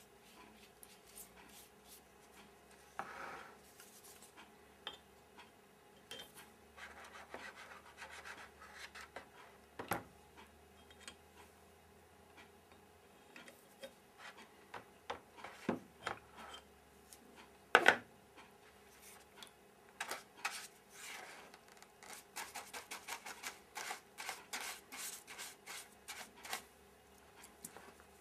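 Paintbrush scrubbing a sandblasted steel part in a plastic tub of cold-bluing solution, with irregular scratchy strokes and clicks of pliers handling the part. One sharp click stands out about two-thirds of the way in, and a quick run of brushing strokes comes near the end.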